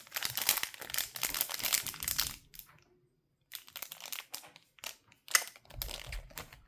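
Plastic packaging crinkling as it is handled, in two spells with a pause of about a second in the middle, with a few sharp clicks in the second spell.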